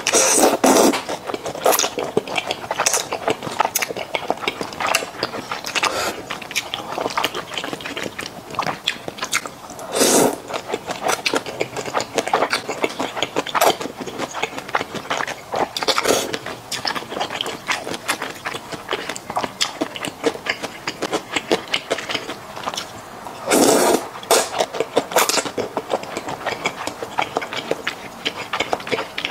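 Close-miked slurping and wet chewing of sauce-coated Xinjiang-style fried rice noodles. There are a few longer, louder slurps: one near the start, one about ten seconds in and one around the 24-second mark, with dense mouth clicks and chewing in between.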